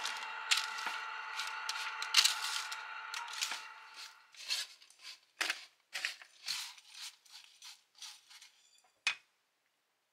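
Kitchen handling sounds: light clinks and scrapes over a steady hum that stops about four seconds in, then scattered short scrapes and clicks, the last a sharp click about nine seconds in.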